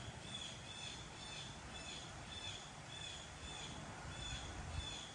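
A bird calling over and over outdoors: short high calls about twice a second, over a low steady rumble.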